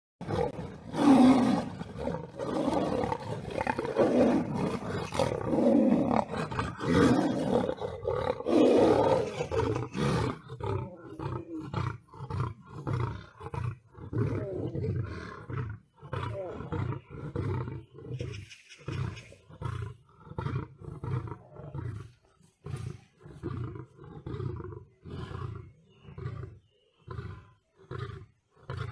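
Lions and a tiger fighting: loud, overlapping snarls and roars for the first ten seconds or so, then a long series of short, low grunts at about one a second.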